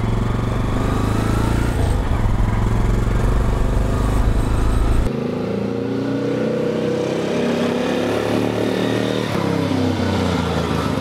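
1955 NSU Max Special 250's single-cylinder four-stroke engine running under way. For the first five seconds it is heard from on board the bike, under a heavy low wind rumble. Then it is heard from the trackside, its note rising and falling with the throttle as the bike rides by.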